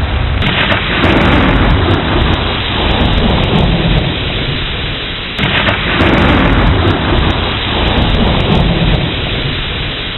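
Steady heavy rain with two rolls of thunder, the first about half a second in and the second about five seconds in, each breaking suddenly and fading away over several seconds.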